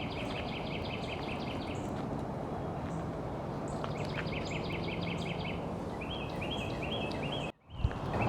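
A bird calling in three runs of rapid, evenly repeated high chirps, each run lasting about two seconds, over a steady outdoor background noise.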